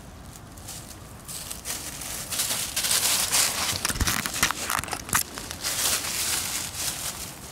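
Dry fallen leaves crackling and rustling under a black Shiba Inu puppy's paws as it scampers right up to the microphone, loudest in the middle, with a few sharp knocks as the puppy bumps against the camera about four seconds in.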